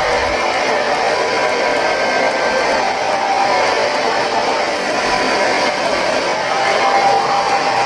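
Hair dryer running steadily: a continuous rush of blown air with a faint, even whine from its motor.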